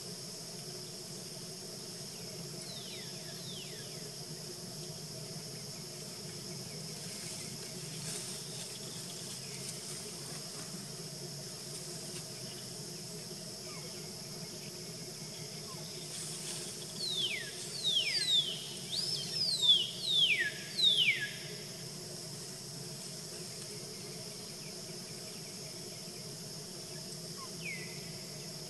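Steady outdoor insect chorus, an even high hiss. Over it a bird calls in a quick run of about eight sharp, falling whistles about two-thirds of the way through, the loudest sound here, with a single such call near the start and another near the end.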